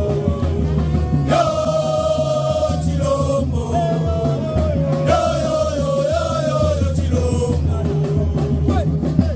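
Music with group singing: voices carry long, sliding melodic lines over a strong, steady bass.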